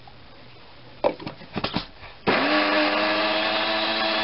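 A few clicks and knocks as the blender's lid is fitted, then a little over two seconds in the electric countertop blender's motor starts and runs at a steady pitch, blending hot melted butter into egg yolks for béarnaise sauce.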